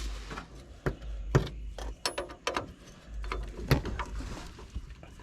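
Wrench clicking and knocking on the metal line fittings of a fuel filter as they are tightened, in a few separate sharp strikes, the loudest about a second and a half in and again near the end.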